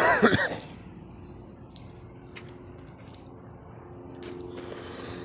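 A person coughs once right at the start, a short cough whose pitch drops, followed by a few small sharp clicks.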